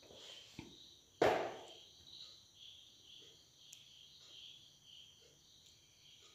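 Faint, steady chirping of crickets. A single sharp knock about a second in, and a few faint ticks later on.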